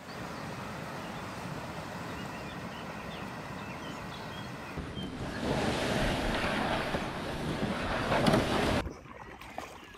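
Stream water rushing over a stony boulder ramp, a steady noisy rush. It gets louder about five seconds in and drops away sharply near the end.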